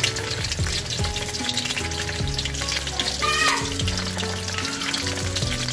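Snakeskin gourami frying in hot oil, sizzling with dense sharp crackles as the oil spatters. A short high sound stands out a little past halfway.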